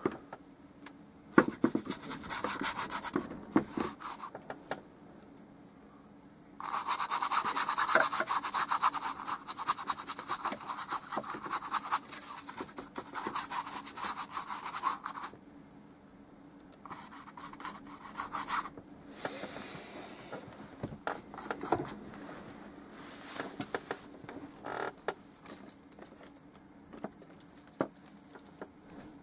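Paintbrush scrubbing oil paint onto a stretched canvas in bursts of strokes. The longest and loudest run of strokes lasts about eight seconds in the middle, followed by shorter scattered strokes.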